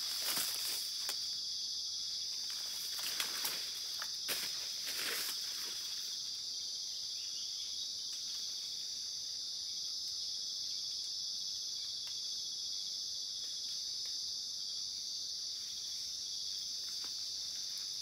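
Insects droning steadily at a high pitch, with a few footsteps rustling through forest undergrowth in the first five or six seconds.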